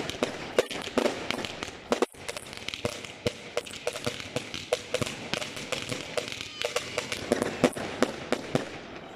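Aerial fireworks bursting overhead in quick succession: a dense, continuous run of sharp bangs and crackles, with a brief break about two seconds in.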